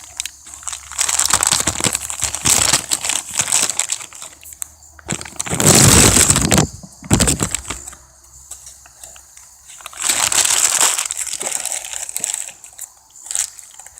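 Packaging crinkling and rustling in three bouts of handling, the middle one loudest, as the new carburetor is unwrapped.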